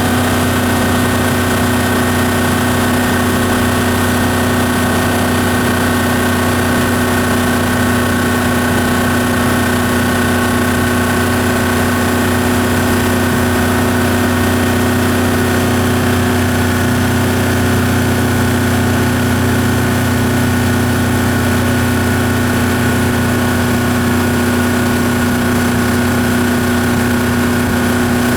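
Yamaha F150 150 hp four-stroke outboard motor running steadily at an unchanging engine speed, an even hum with no revving.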